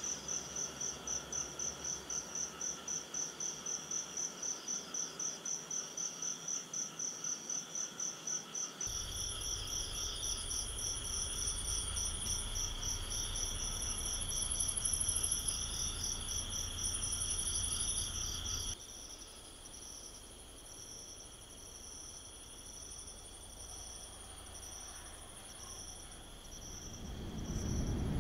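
Night insects, crickets by the sound of them, chirping in a steady high pulsing rhythm of about five pulses a second. From about nine seconds in a low rumble runs under them. Past the middle the footage is slowed down and the chirps come slowly, about one a second; a low noise rises near the end.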